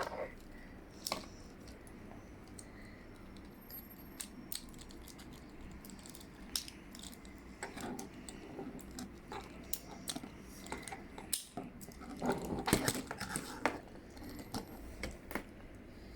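Small plastic LEGO pieces clicking and rattling as they are handled, in scattered separate clicks with a denser burst of rattling about twelve seconds in.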